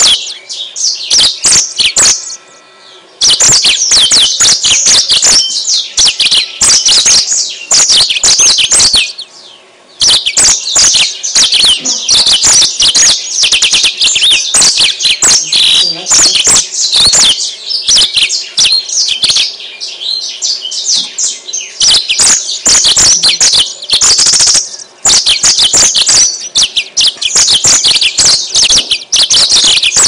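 Yellow-fronted canary (Mozambique canary) singing: long runs of rapid, high-pitched twittering, broken by two short pauses, the first a few seconds in and the second about a third of the way through.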